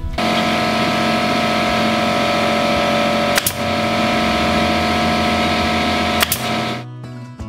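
Air compressor running with a steady hum and hiss, cutting off near the end, while a pneumatic nailer fires twice, sharp snaps about three and a half and six seconds in, driving nails through a wooden rail into turned spindles.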